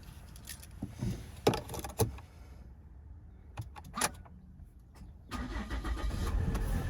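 A few scattered clicks and knocks, then about five seconds in, a Volvo D5244T12 2.4-litre five-cylinder turbodiesel starts from cold and settles into a steady run.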